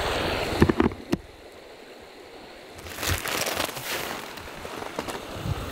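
Shallow stream running over stones, broken off about half a second in by a few sharp knocks of the camera being handled. After a short quiet spell, jacket fabric rustles and crackles close to the microphone.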